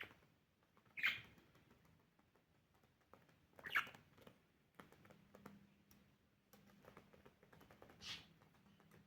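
Pet budgerigar giving three short, sharp chirps, about a second in, near four seconds and near the end, among faint small clicks.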